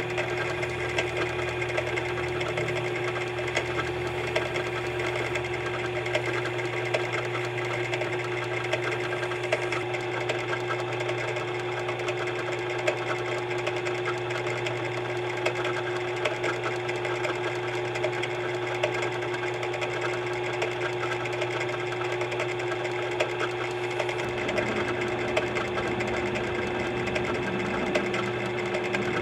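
Electric drill motor running at a steady speed with an even hum, spinning a brass saw screw that is pressed against sandpaper and then a leather pad to polish it, with a rubbing hiss over the hum.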